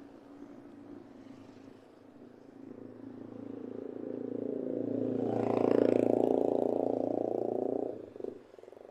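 A motor engine runs with a rough, buzzing drone. It grows louder for a few seconds, then cuts off near the end.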